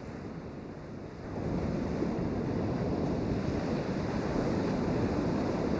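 North Sea surf breaking and washing up a sandy beach, a steady rush that swells louder about a second in as a wave comes in.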